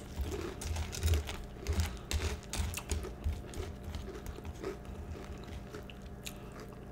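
Close-up chewing of crunchy Peeps cereal, with irregular crunches and clicks that are busiest in the first few seconds and thin out toward the end.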